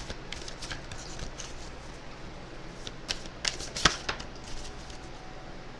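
Tarot cards being shuffled and handled: a run of light, irregular flicks and clicks, the sharpest about four seconds in.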